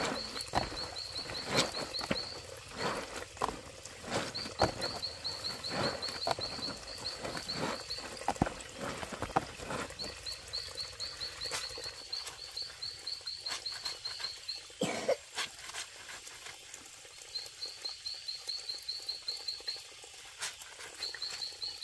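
Clothes being scrubbed and squeezed by hand in a plastic basin of soapy water: splashes and wet squelches, thick in the first ten seconds and sparser after. Behind it a small animal chirps high and fast, in runs of about two seconds, five times.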